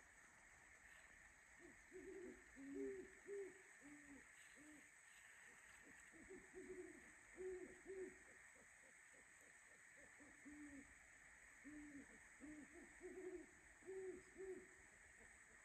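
Owls hooting, faint: short low hoots in runs, at two pitches, one a little higher than the other, with pauses between the runs.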